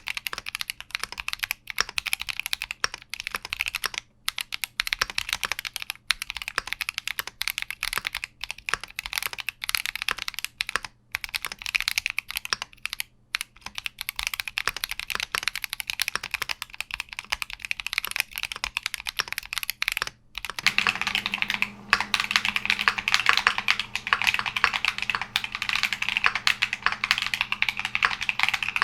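Fast typing on a Keychron Q60 mechanical keyboard: a quick, continuous clatter of key presses. About two-thirds of the way through, the typing turns denser and louder with a changed tone, as when another set of switches is being typed on.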